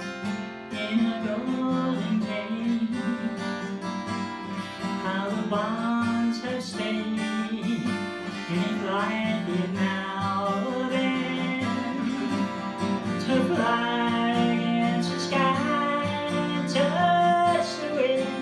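Acoustic guitar strumming under a sung melody: a slow ballad.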